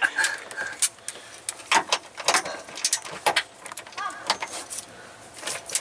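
Torque wrench and socket working the strut brace's mounting bolts: irregular sharp metallic clicks and clinks as the bolts are ratcheted down.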